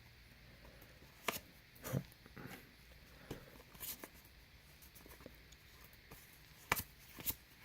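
Faint handling of Panini Adrenalyn XL trading cards as they are flipped through one at a time: about six soft clicks and slides, spread unevenly.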